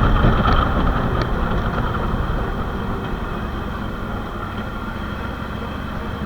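A vehicle running: a steady rumble that eases off slightly over the first few seconds.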